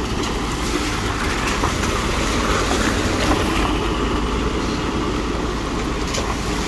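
Steady low rumble of vehicles on a gravel road, from tanker trucks and a pickup moving slowly past, mixed with wind buffeting the microphone.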